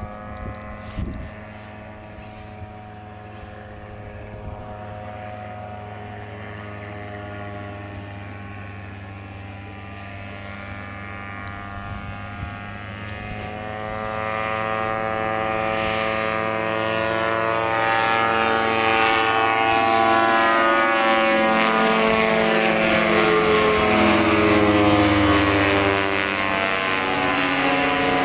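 Rotax 277 single-cylinder two-stroke engine of an Earthstar Laughing Gull ultralight droning as the plane flies in and passes overhead. It grows steadily louder from about halfway, is loudest just before it goes over, and its pitch slides as it passes.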